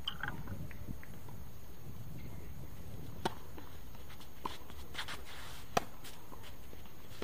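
Tennis rally: a few sharp knocks of a tennis ball being struck and bouncing. One comes about three seconds in and the loudest near the end, over a steady background hiss.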